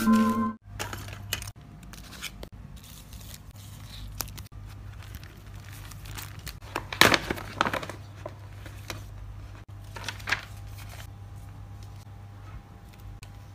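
Plastic sleeves and sticker sheets handled by hand, crinkling and rustling in short bursts, with a louder crinkle about seven seconds in. A low steady hum runs underneath.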